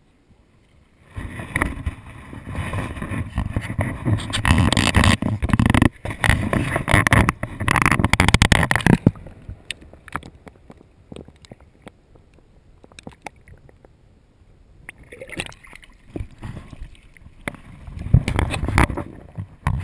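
Creek water splashing, gurgling and sloshing right at the microphone as the camera is dipped into a shallow stream, with knocks against the camera. It is heavy for the first several seconds, quieter through the middle, and there is a second spell of splashing near the end.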